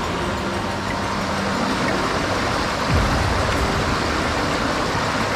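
Steady rush of a mountain stream's flowing water, with a dull low thump about three seconds in.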